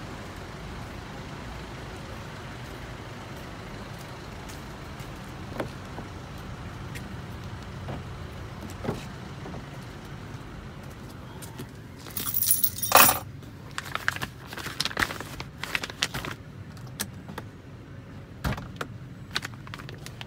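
Steady outdoor background hum with a few single clicks. About twelve seconds in, a burst of sharp clatters, clicks and jangling keys as the Mazda's door is opened and someone gets into the car, continuing in smaller bursts near the end.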